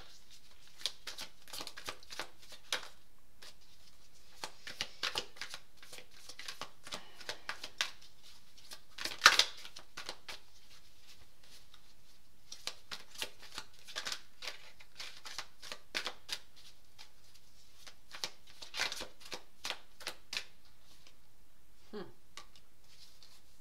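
Tarot cards being shuffled by hand: repeated bursts of quick flicking and riffling with short pauses between, with one sharper snap about nine seconds in.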